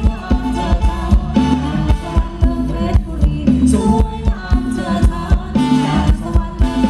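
Thai ramwong dance music from a live band, played loud: a steady beat of about two drum hits a second under bass and a melody line, with a voice singing.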